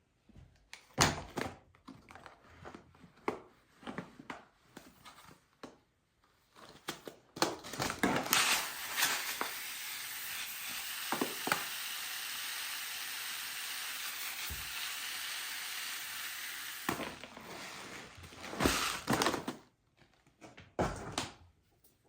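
Plastic poly pellets poured into a fabric gnome body: a steady hiss of pellets streaming in for about nine seconds. Before and after it come scattered rustles and clicks of the fabric and pellet bag being handled.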